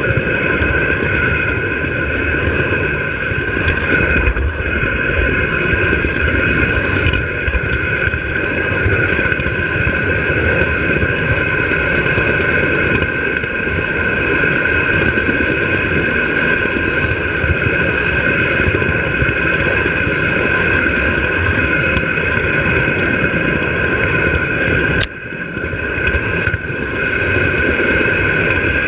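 Three-rail O gauge model train running along the track: a steady high motor-and-gear whine over the continuous rumble of wheels on metal rails. Near the end the sound briefly dips.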